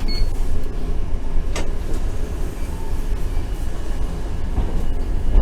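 Randen tram running on its rails, heard from inside the car: a steady low rumble with a single sharp click about a second and a half in.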